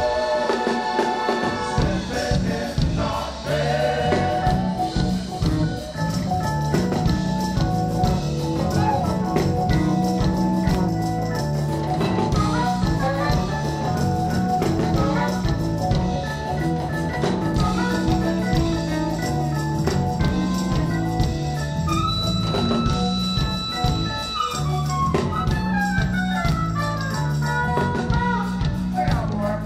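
Live funk band jamming: a steady bass line and drums under organ, with saxophone and harmonica playing lead. About two-thirds in a lead instrument holds one long high note, then plays falling runs.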